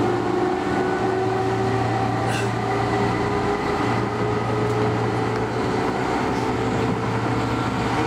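Keihan 2600 series electric train running, heard from inside the passenger car: a steady rumble under a motor whine that rises slowly in pitch as the train picks up speed.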